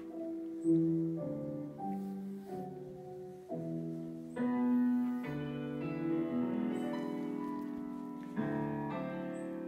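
Slow piano music: held notes and chords changing about once a second.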